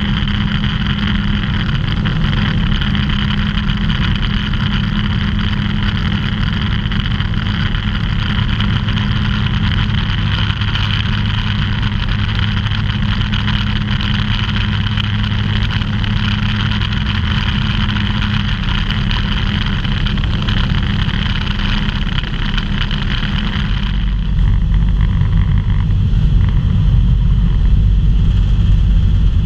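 Microlight aircraft's engine and propeller droning steadily with rushing airflow, heard from inside the cockpit. About 24 seconds in the sound changes: the higher hiss drops away and the low rumble gets heavier.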